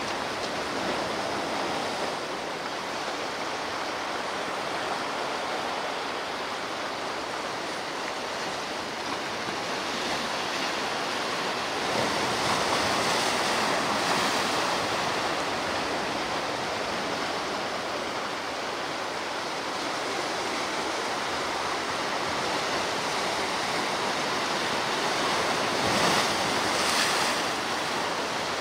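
Ocean surf washing continuously onto the shore, swelling and easing as waves break, with a louder wave breaking about halfway through and another near the end.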